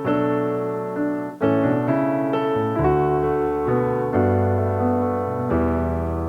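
Background music played on piano, a chain of notes and chords changing every half second or so.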